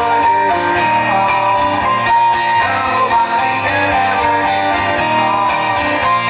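Live rock band playing an instrumental passage: strummed guitars over a steady beat, with no vocals.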